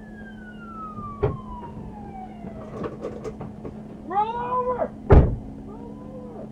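A police siren wail falling away, a sharp bang, then a wavering cry from a voice, followed by a louder sharp bang, over a steady low electrical hum.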